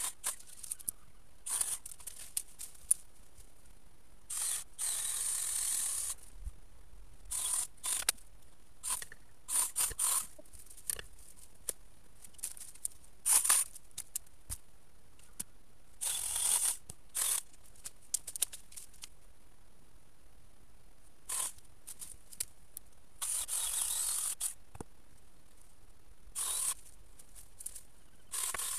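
Hand pruning saw cutting through hazel branches in several short spells of rapid strokes, with twigs snapping and cracking in between.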